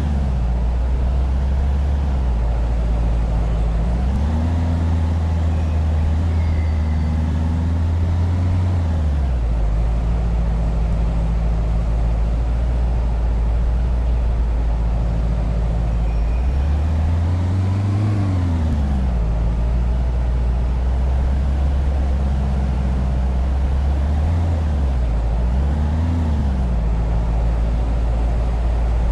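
A motor vehicle's engine running steadily with a low hum, its pitch rising and falling again a few times as it speeds up and eases off, the longest swell about halfway through.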